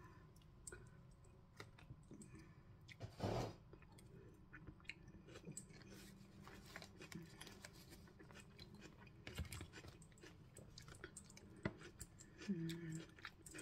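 A person chewing a mouthful of creamy mushroom salad, with many faint clicks of a metal fork against a plastic tub. A louder scrape about three seconds in, and a short hummed 'mm' near the end.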